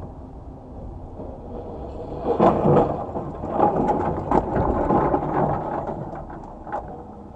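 Dash-cam recording of a vehicle collision under a steady low road rumble: about two seconds in, a loud rumbling crash sets in, full of crunching knocks and clatter, and dies away over about three seconds.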